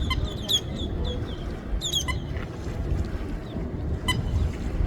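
Low rumbling noise, like wind on the microphone, with a few short high bird chirps in the first two seconds and one brief sharp bird call near the end.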